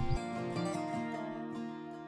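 Background music of gently plucked strings, with steady held notes and new notes picked several times a second. A low rumble from the previous outdoor shot cuts off just after the start.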